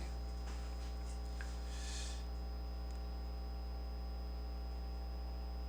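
Steady electrical mains hum with its overtones, with a faint brief rustle about two seconds in.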